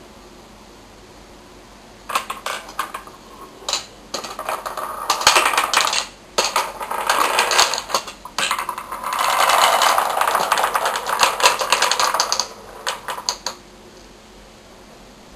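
Balls of a large wooden rolling ball clock rolling and clattering along its wooden tracks, a dense run of clicks and knocks as they tumble and strike the rails and each other. It starts about two seconds in, comes in bouts with short pauses, is loudest near the middle and stops shortly before the end.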